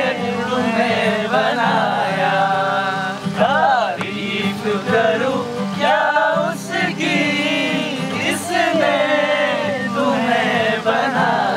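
Several men singing a Hindi film song together in unison, with a guitar accompanying them.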